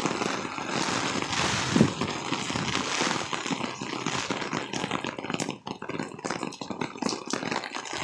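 Heavy torrential rain pouring down as a steady hiss, with many close drops ticking and splattering, including water dripping off an awning overhead.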